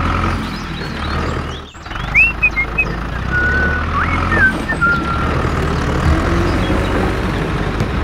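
Steady low tractor-engine rumble, dropping out briefly just under two seconds in. A few short whistle-like chirps and glides sound over it.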